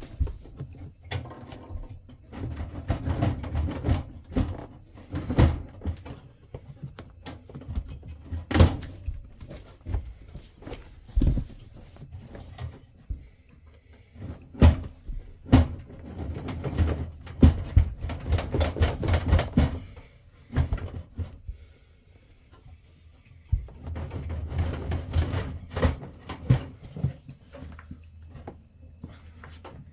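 RV propane furnace being wiggled loose from its gas and air ports and slid out of its compartment by hand: irregular knocks, clunks and scraping, coming in busy bursts with a few short quieter pauses.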